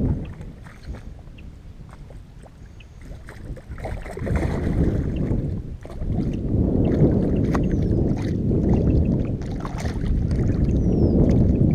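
A hooked bass thrashing and splashing at the water's surface beside a kayak, in bouts from about four seconds in, over rushing wind on the microphone.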